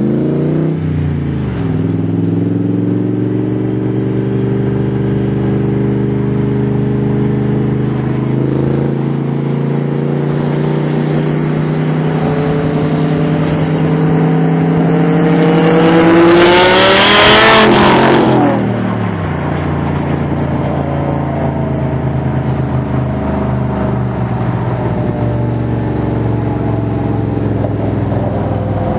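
Factory Five Cobra replica's Ford small-block V8, heard from its open cockpit: cruising steadily, then pulling hard with a rising engine note to its loudest point a little past the middle, where the revs drop sharply as it comes off the throttle, then running on at an even cruise.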